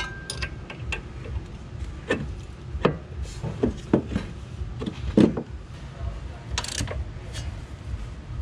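Irregular metallic clinks and knocks of hand tools on the front suspension of a Toyota Supra as a shock mount bolt is fitted and tightened, with a short scraping rattle about two-thirds of the way through.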